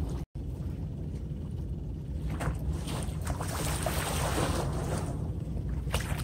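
Seaside wind on the microphone over a steady low rumble, with a hiss of wash swelling up for a couple of seconds mid-way. The sound drops out to silence for an instant just after the start.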